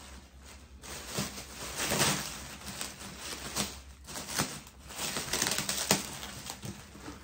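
Packing wrap being pulled off a boxed motorcycle windshield by hand: irregular rustling and crinkling with scattered clicks.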